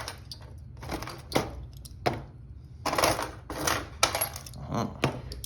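Steel handcuffs and lock picks clicking and scraping in irregular bursts as the cuff is picked open, over a steady low hum.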